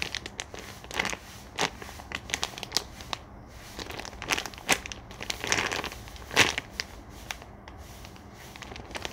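Clear plastic zip bag crinkling and crackling in the hands as the large foam squishy inside is held and pressed. It comes as irregular crackles, the loudest about six seconds in.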